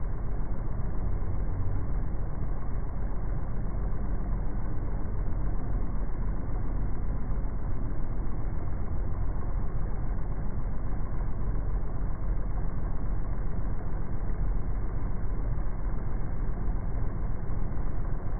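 Steady low droning rumble of outdoor background sound slowed down by slow-motion playback, with no distinct events and nothing high-pitched in it.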